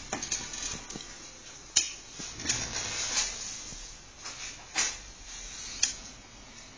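HP DesignJet 130nr wide-format inkjet printer's mechanism clicking and knocking irregularly over a low whir as it runs its power-on checks, the sharpest knock about two seconds in. The printer is faulty: it reports a paper jam with no paper loaded, and the owner says its printhead carriage jams at the far left with a loud clunk.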